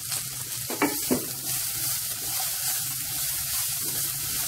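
Shredded carrot, cabbage, peas and capsicum sizzling in hot oil in a kadai while a spatula stirs them: a steady frying hiss, with two brief knocks about a second in.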